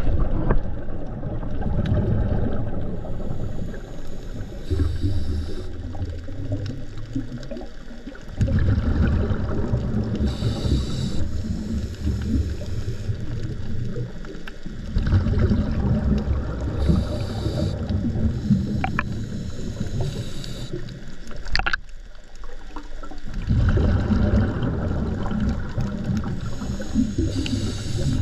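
Muffled underwater noise: a low, steady rumble of moving water, with a short hissing breath sound about every six seconds from the swimmer holding the camera.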